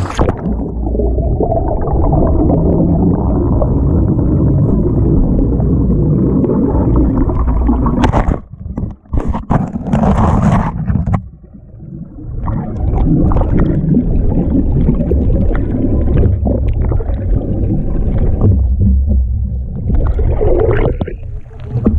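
Muffled underwater rumbling and gurgling from lake water around a submerged camera. Short, sharper splashing noises come about eight to eleven seconds in, followed by a brief quieter spell, before the low rumble returns.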